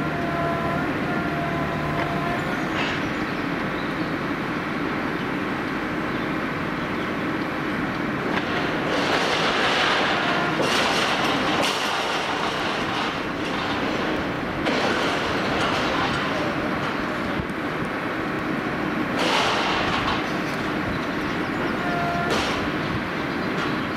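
Rail-handling gantry crane lowering long steel rails: a steady mechanical rumble with a whine of several pitches from the drive near the start and near the end, and louder surges of grinding steel noise about nine and nineteen seconds in.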